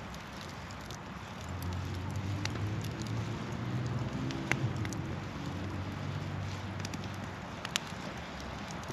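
Wood campfire crackling, with a few sharp pops. Under it a passing vehicle's low engine hum swells from about a second and a half in and fades away near the end.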